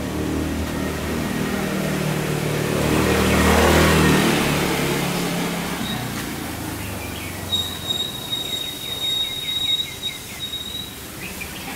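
A motorbike engine passes close in a narrow lane, its hum swelling to a peak about four seconds in and then fading. In the second half a high steady whistle sounds for a few seconds, with a run of short, quick chirps beneath it.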